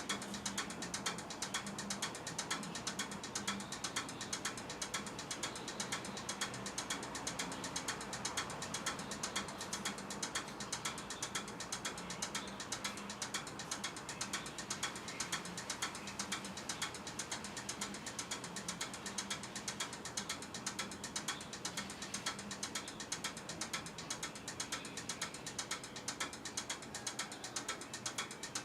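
Rapid, steady clicking, many clicks a second, at an even level throughout.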